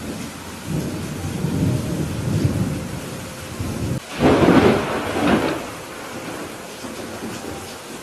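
Thunderstorm: steady rain with a low rolling rumble of thunder, then a louder, sharper thunderclap about four seconds in that rolls off over a second or two.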